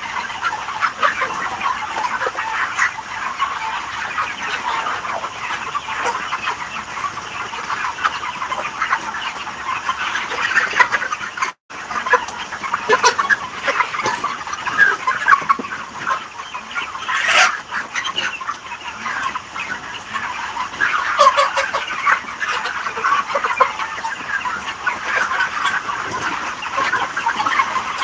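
A large flock of chickens clucking and calling continuously, many overlapping short calls, with a momentary dropout in the sound a little before halfway.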